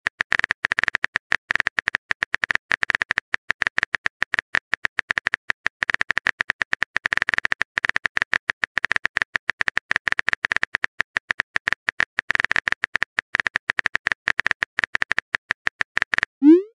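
Phone keyboard typing sound effect: rapid, irregular key clicks running without a break, as a message is typed. The clicks stop shortly before the end, and a rising notification tone begins.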